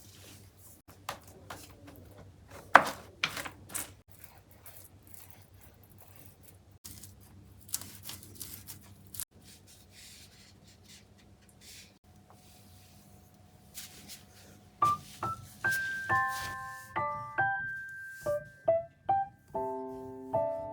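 Quiet handling sounds: scattered taps and clicks with one sharp knock about three seconds in, over a low hum. Soft piano music comes in about fifteen seconds in.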